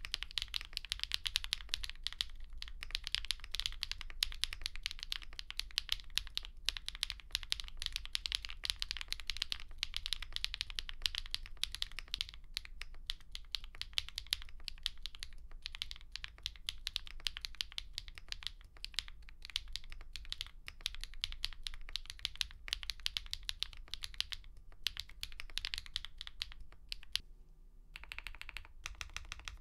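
Touch-typing on a Neo Ergo mechanical keyboard with factory-lubed HMX Cloud linear switches and GMK keycaps, the LY stems softening the bottom-out clack. A fast, dense run of keystrokes at about 100 words per minute gives way around the middle to slower typing at about 50 words per minute, with a brief pause near the end.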